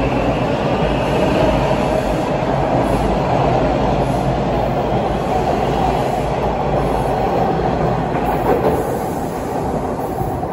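TTC T1 subway train running out of the station, a steady rumble of wheels on rail with a clickety-clack, fading over the last second or two as it goes into the tunnel.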